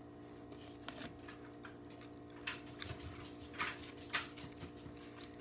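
A person chewing a mouthful of bagel sandwich with the mouth closed: soft, wet mouth clicks and smacks come several times, most of them in the second half, over a steady low hum.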